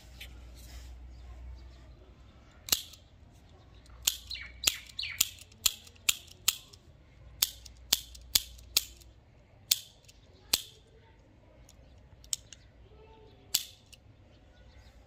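A restored antique revolver's action being worked: about fifteen sharp metallic clicks of the hammer and cylinder, cocked and dry-fired, irregularly spaced and quickest about halfway through.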